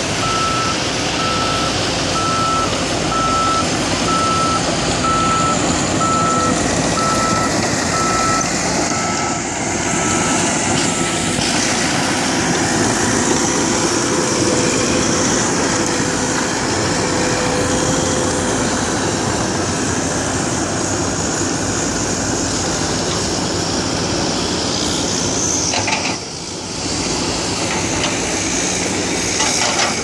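CAT D5K crawler bulldozer's diesel engine running under load close by. A backup alarm beeps at an even pace through the first ten seconds or so, then stops.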